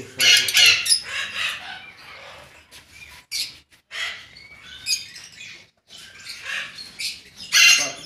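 Caged parrots squawking: short harsh high-pitched calls at irregular intervals, loudest at the start and again near the end.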